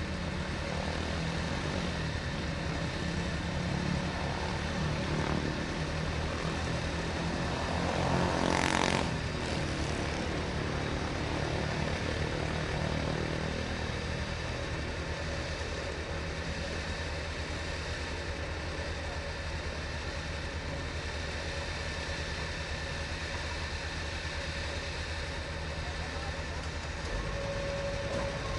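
Hitachi hydraulic excavator's diesel engine running steadily at work, with a brief louder rush of noise about nine seconds in.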